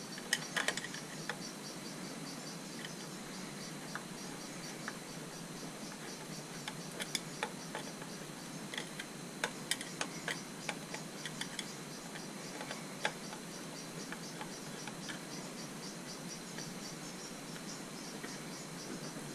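Screwdriver and fingers working the screws of a motorcycle headlight and screen bracket: scattered light metallic clicks and taps, most of them around the middle. Under them runs a faint, evenly pulsed high chirping.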